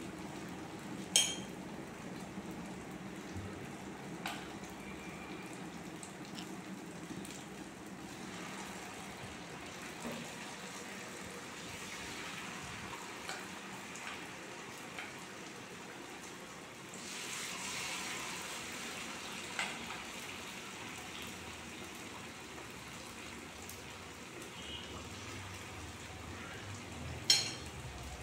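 Battered banana slices deep-frying in hot coconut oil, a steady sizzle that grows louder for a couple of seconds past the middle as another battered piece goes into the oil. Two sharp clinks, about a second in and near the end.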